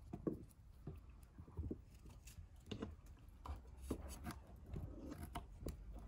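Faint, irregular soft taps and rubbing as the cut-off tops are set back onto hollowed quinces and the fruit is nudged against the ceramic-coated pan.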